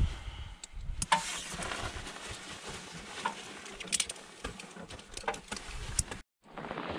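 Climbing hardware being handled: scattered light clicks and clinks, thickest a few seconds in, over a low rumble. The sound cuts out completely for a moment near the end.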